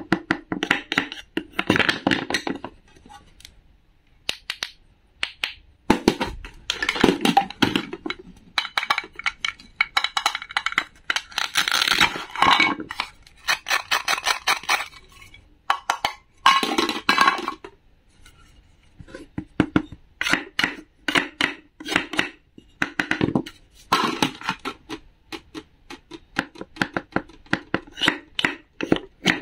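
Wooden toy knife cutting through wooden play vegetables whose halves are held together by hook-and-loop (Velcro) pads, giving repeated rasping tears of about a second each. Between the tears come knocks and clacks of wood on a wooden cutting board as the pieces are handled.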